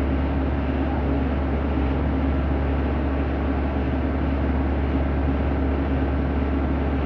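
Heavy diesel engine idling steadily, a deep even drone with a constant hum.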